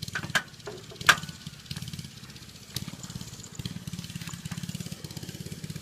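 Small dirt bike engine running with a rapid, even putter that sounds like a mini bike. There is a sharp click about a second in.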